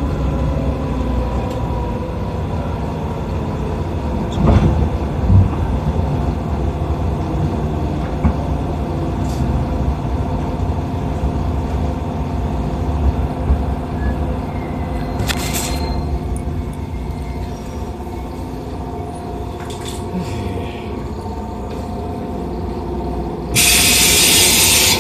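Electric commuter train standing at the platform, its on-board equipment giving a steady hum with a few held tones. A brief hiss of air comes around the middle, and a louder, sustained air hiss starts near the end.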